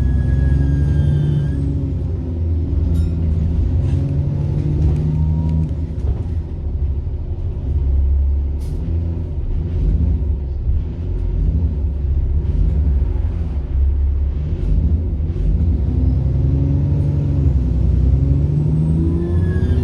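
Bus diesel engine with a high turbocharger whine, heard from on board. The engine note climbs and drops again several times as the bus accelerates and eases off. The whine is strongest near the start and again near the end, and there are a few short rattles and clicks.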